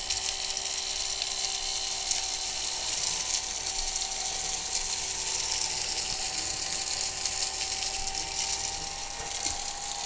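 Homemade mini vacuum cleaner built from a small 12 V DC computer-fan blower, running steadily with a quiet motor whine and rushing air at the nozzle as it sucks up crumbs. Scattered light ticks come from particles being drawn into the fan.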